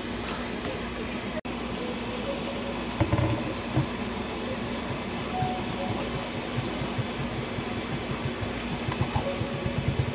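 Pork and vegetables cooking in a honeycomb-pattern wok with a steady sizzling hiss. A black spatula stirs and knocks against the pan, in a cluster of knocks about three seconds in and again near the end. A steady low hum runs underneath.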